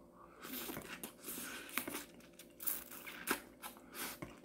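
Biting and chewing on soy-marinated raw crab, the shell and legs crunching and cracking in a run of short bursts with a few sharp clicks.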